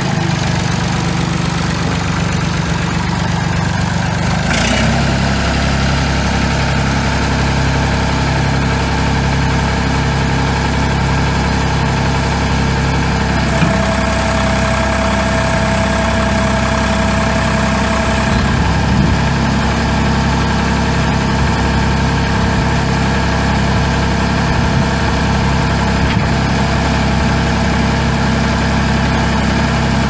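Perkins 2.5-litre three-cylinder diesel of a 1979 Massey-Ferguson 30B backhoe running at a steady idle. Its note changes about four and a half seconds in, and a steady whine joins it for about five seconds midway.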